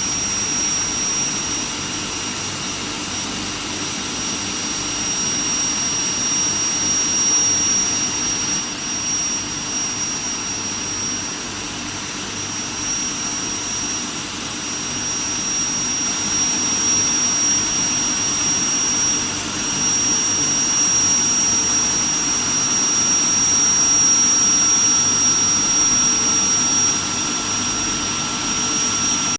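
Steel plate induction hardening machine running, giving a steady high-pitched whine over a constant rushing noise and a low hum.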